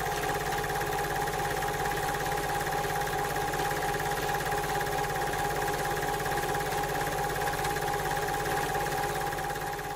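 Steady mechanical hum with a fast, even rattle underneath, starting abruptly and holding level throughout.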